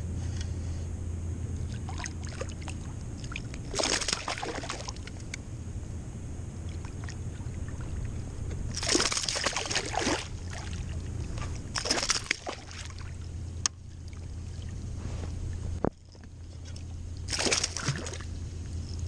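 A hooked bass splashing and thrashing at the water's surface beside an inflatable kayak as it is reeled in, in four bursts about four, nine, twelve and seventeen seconds in, over a steady low hum.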